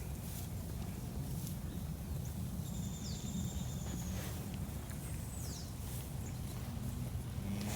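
Outdoor farm ambience: a steady low rumbling noise, with two brief high thin whistles, the first about three seconds in and a second, falling one about five seconds in.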